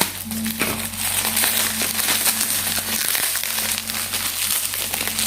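Bubble wrap and plastic packaging crinkling and crackling as a tripod is unwrapped by hand, a continuous irregular rustle.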